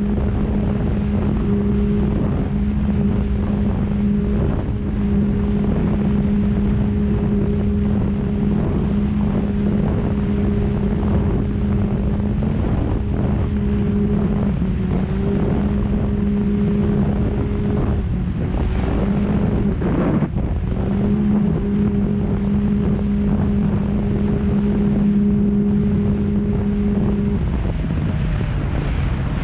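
Off-road race vehicle's engine running hard at high, steady revs, heard from onboard under heavy wind noise on the microphone. The note breaks briefly about two-thirds of the way through, with a sharp knock, then falls near the end as the revs drop.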